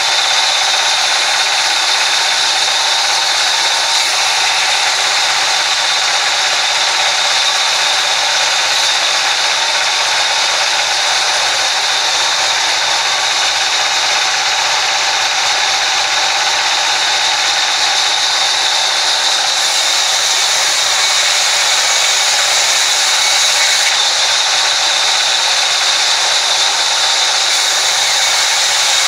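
Sawmill band saw running and cutting through wooden planks: a loud, steady high-pitched whine that holds an even level throughout.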